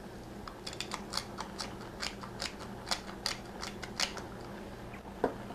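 Hand-twisted pepper mill grinding black pepper, its mechanism clicking in a quick run of about four clicks a second for a few seconds.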